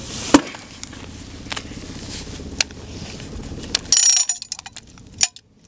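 Metal clicks and rattles of an M32 six-shot 40mm revolver-type grenade launcher being reloaded by hand. A sharp snap comes near the start, then a few single clicks, a short rattle about four seconds in, and another snap near the end.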